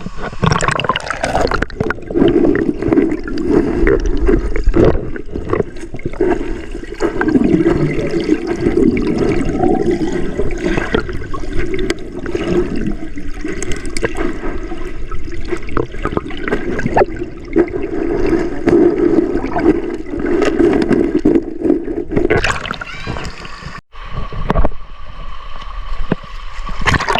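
Valley stream water gurgling and churning close to the microphone, with many small splashes.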